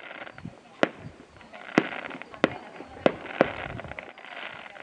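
Aerial fireworks shells bursting: five sharp bangs, the first few about a second apart and the last two in quick succession.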